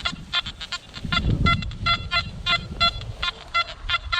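Nokta Anfibio metal detector giving a quick run of short, same-pitched beeps, about three a second, as the coil is swept over targets in ground littered with copper wire. A low rumble comes in briefly about a second in.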